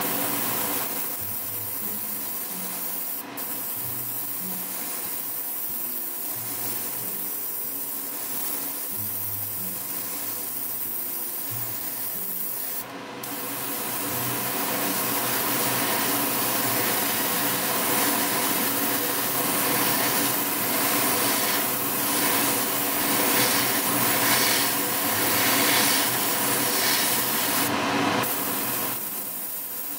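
Airbrush spraying pearl paint in a continuous hiss over a steady background hum. It breaks off briefly twice early on and grows louder from about halfway through.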